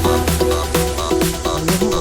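Background electronic dance music: a steady beat under a deep bass and a melody of short synth notes.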